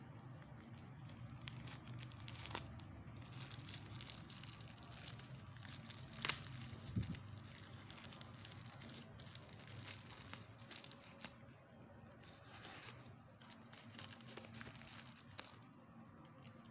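Plastic parcel wrapping and brown packing tape being slit with a razor blade and torn open by hand: faint crinkling and tearing with scattered small clicks, and one sharper click about six seconds in.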